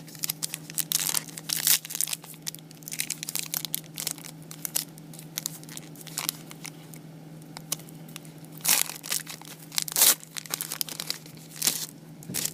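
A trading-card pack's wrapper being torn open and crinkled in irregular bursts of crackling, loudest about three-quarters of the way through. A low steady hum sits underneath.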